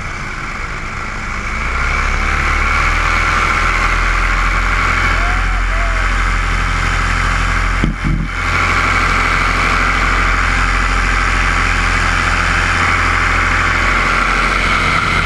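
Paramotor engine and propeller running steadily in flight. The engine comes up in level about two seconds in and drops out for a moment about eight seconds in before picking straight back up.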